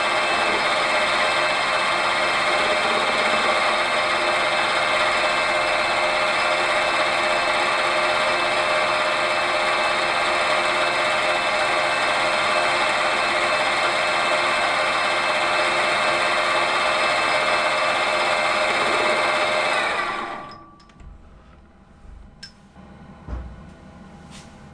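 Small metal lathe running steadily with a whine of several constant tones while a carbide-insert tool turns down a steel crankshaft part. About twenty seconds in the lathe is switched off and winds down quickly, leaving a few faint clicks.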